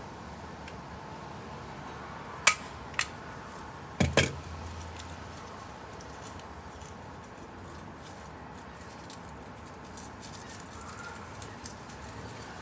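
Small hard objects being handled: a couple of sharp clicks a few seconds in, then a double knock, over a steady faint hiss, with a few lighter taps near the end.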